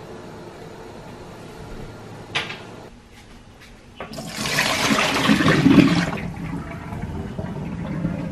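Water poured from a stainless steel pot into a stainless steel kitchen sink. The splashing starts suddenly about four seconds in, is loudest for a couple of seconds, then tails off. A brief knock comes a couple of seconds before the pour.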